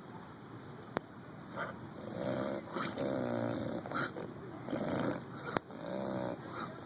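English bulldog in a sneezing fit: a run of loud, wheezy nasal sneezes and snorts, starting about two seconds in. The dog is clearing mucus from its nose. Two sharp clicks come about a second in and near the end.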